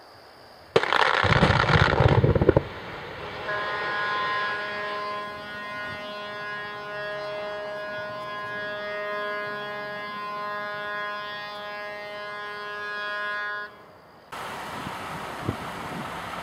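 Open-pit coal mine rock blast going off about a second in: a sudden loud blast lasting about two seconds. Then a steady horn tone sounds for about ten seconds, and near the end it gives way to wind on the microphone.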